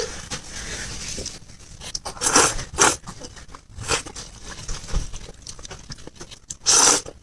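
Close-miked eating of noodle soup: several short bursts of slurping and chewing, the loudest about two and a half seconds in and near the end.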